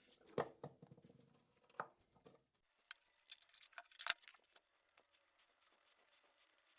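Faint, scattered clicks and taps from small parts and wires being handled while a relay module is wired up, with one sharper click about four seconds in.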